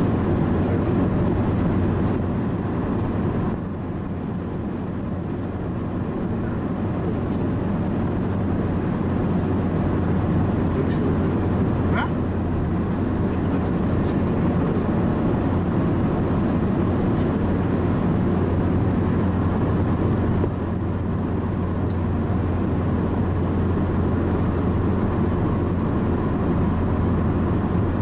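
Steady road noise inside a moving car's cabin: engine and tyre drone with a strong low hum, and a few faint clicks.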